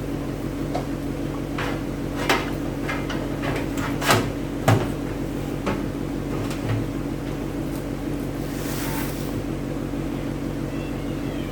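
Scattered clicks and knocks of hardware being handled and fitted into a steel PC case, over a steady low hum, with a short rustle near the end.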